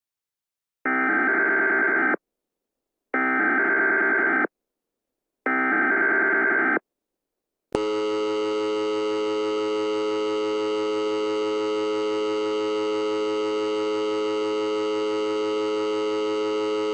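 Emergency Alert System broadcast tones. There are three bursts of SAME header data tones, each about a second and a half long with short gaps between them. These are followed by a steady attention signal tone held for about ten seconds. This is the standard start of an emergency alert, with the spoken warning message to follow.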